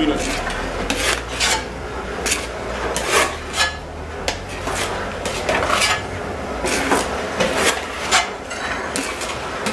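Ground roasted walnuts being scraped out of a metal roasting pan with a hand scraper and sliding down a chute, a run of irregular rasping scrapes of metal through the coarse meal. A low steady hum from the mill's machinery runs underneath.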